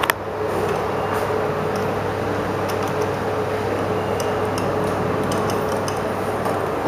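Steady hum and hiss inside an Otis traction elevator cab standing at a landing, with a few light ticks and a faint steady tone that stops about five seconds in.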